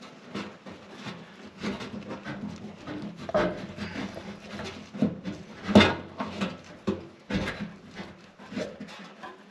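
Fuel line being worked onto the sending unit fitting of a Ford Econoline fuel tank by hand: irregular clicks, knocks and rubbing from the plastic and metal parts, with the loudest knock about six seconds in.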